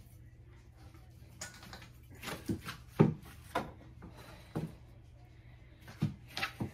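Knife and hands knocking against a cutting board while fat is trimmed from a raw brisket: a string of short, irregular knocks, the loudest about three seconds in, over a faint low hum.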